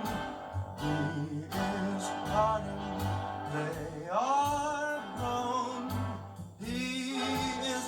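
A song playing: a male voice singing drawn-out, gliding notes over guitar and band accompaniment.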